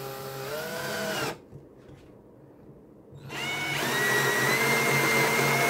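KIMO 20V cordless drill driving a long wood screw into a block of lumber in two runs. The motor whine climbs in pitch and stops about a second in, then starts again after a pause of about two seconds, louder, rising and then running steady.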